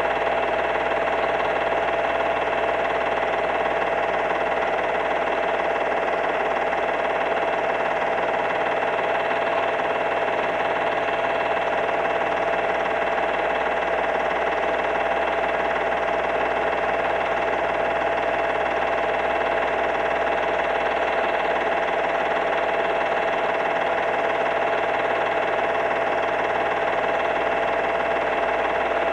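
Steady, unchanging hum made of several held tones over a hiss, with no rise, fall or break.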